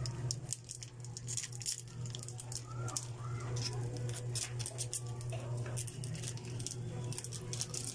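Mung beans sizzling in oil in a pan on a gas burner, with rapid, irregular crackles and pops over a steady low hum.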